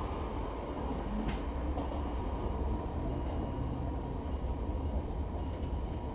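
Steady low rumble of a double-decker bus's engine and road noise, heard from inside the cabin, with a couple of faint ticks.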